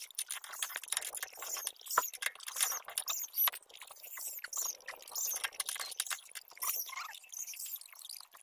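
Metal hand tools clicking and scraping against a car's rear disc brake caliper and hub during a brake pad change, with sharp clicks about two and three and a half seconds in.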